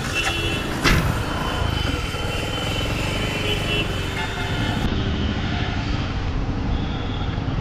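Bajaj Platina motorcycle's single-cylinder engine running as the bike rides along a street, with road and wind noise. There is a sharp knock about a second in, and high steady tones come and go during the first few seconds.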